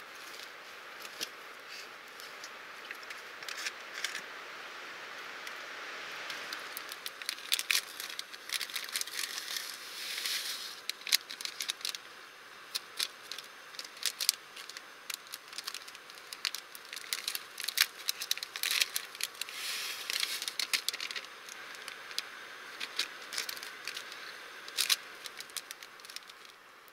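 Small portable gas stove hissing under a tin can of water as it heats toward the boil. Over it, a long run of sharp crackles and clicks from paper sachets being torn open and handled.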